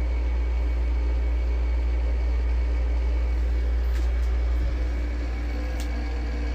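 Steady low rumble with a faint hum, like a fan or other room machinery running, with a couple of faint clicks in the second half.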